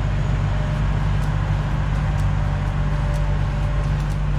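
A vehicle engine idling, a low, even hum with faint light ticks now and then.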